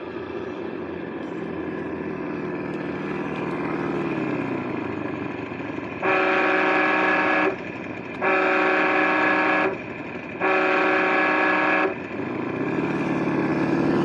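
The sound module of an RC Land Rover D90 Defender crawler playing a simulated engine: running steadily, its pitch falls about four seconds in, then three horn blasts of about a second and a half each, then the engine sound rises again near the end.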